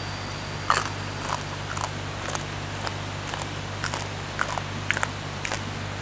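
Fresh green vegetable stems snapped and torn by hand, about a dozen short crisp snaps, over the steady rush of a small waterfall.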